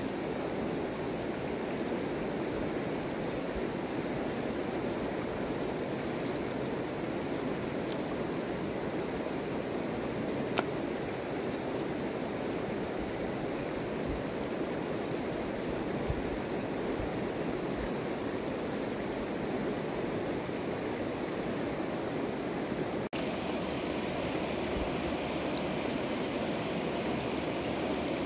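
Shallow river rushing steadily over stones, with a few faint clicks. The rush turns brighter and hissier after a cut about 23 seconds in.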